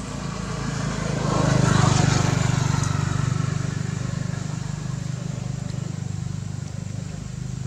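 A motor vehicle engine drones, swelling to its loudest about two seconds in and then slowly fading as it passes by.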